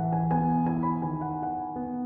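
Soft background music: gentle piano notes over a sustained low pad.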